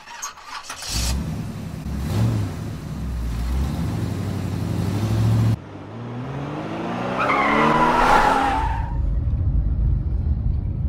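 A car engine running and revving. The sound drops suddenly about five and a half seconds in, then the engine pitch climbs in a rising rev around seven to nine seconds in.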